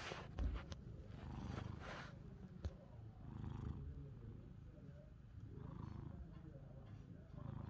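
A long-haired ginger cat purring steadily, with a few brief rustling noises in the first two seconds.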